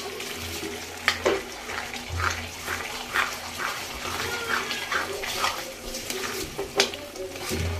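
Carrot halwa bubbling in a kadhai, wet with the water the added sugar has let out, while a spoon stirs it, scraping through the mixture with a couple of sharper knocks against the pan.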